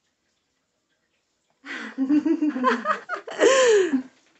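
About a second and a half of silence, then a woman laughing and vocalising, ending in a long sound that falls in pitch.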